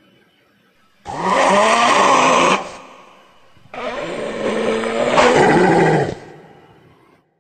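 Spotted hyena vocalising, played as a sound effect: two loud calls of about two seconds each, the first starting about a second in, with pitch that bends up and down.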